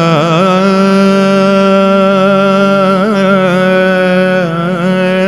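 Background music: one long held chant-like note over a steady low drone, its pitch wavering in small turns now and then.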